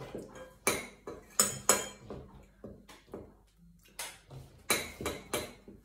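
Dishes and cutlery clinking and clattering: about a dozen sharp, irregular knocks, each with a short ring.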